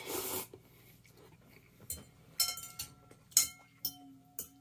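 A short rustle, then about six light clicks and clinks of tableware being handled during a meal, several ringing briefly.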